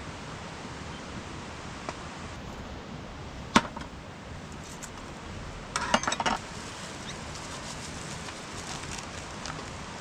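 One sharp knock about three and a half seconds in, then a quick run of light clinks about two seconds later, like hard objects knocked together, over a steady hiss.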